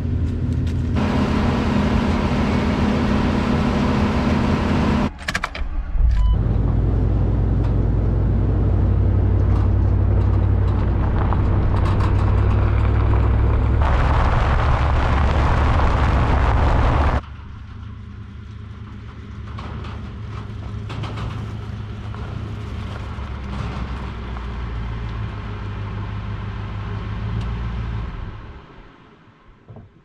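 A John Deere combine's engine runs steadily. After about five seconds it gives way to a pickup truck driving on a gravel road, towing a trailer. The truck's engine and tyres make a loud low rumble with wind on the microphone, heard from outside the truck. The rumble is hissier for a few seconds, then carries on quieter before fading out near the end.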